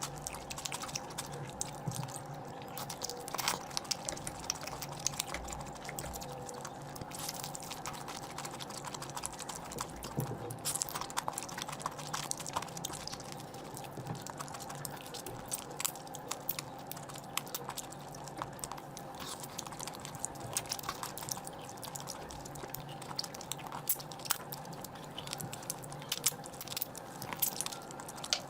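Close-miked eating of curry: chewing with many quick, irregular wet clicks and smacks of the mouth, over a steady low hum.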